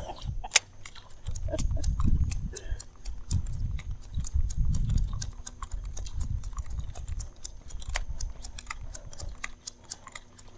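Fishing reel ticking rhythmically as the line is cranked in, about four to five ticks a second, over a low uneven rumble.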